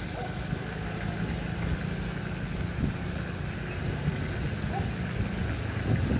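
Steady wind rumble on the microphone of a camera moving along a road, with a low steady drone underneath.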